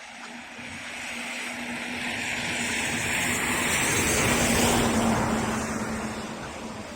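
A motor vehicle driving past through floodwater. The noise of its engine and the rushing water grows louder, peaks about four to five seconds in, then fades.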